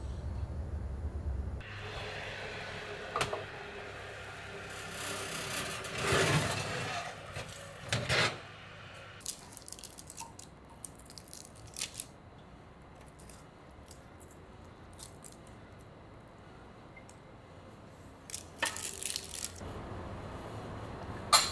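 Metal spatula scraping under puff pastries on a parchment-lined metal baking tray, with longer scrapes a few seconds in and then scattered light clicks and taps of metal on the tray.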